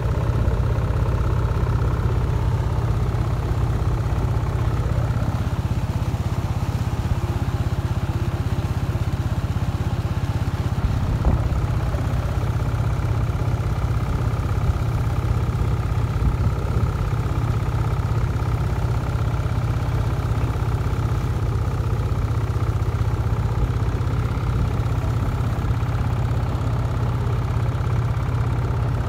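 Small 15-horsepower tractor engine running steadily under load, at full throttle, driving a Chuvash-made rotary mower as it cuts a tall green crop. A single brief click about eleven seconds in.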